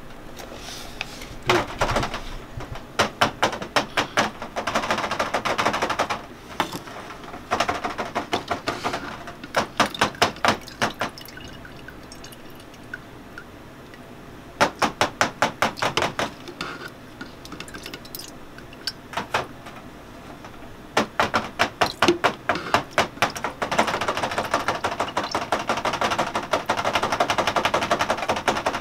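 Metal spoon rattling against a glass jar in quick runs of clicks, several a second, as maraschino cherries are scooped out of their syrup and shaken to drain, then tipped into a stainless steel bowl of confectioner's sugar. Longer spells of steady rustling come in between.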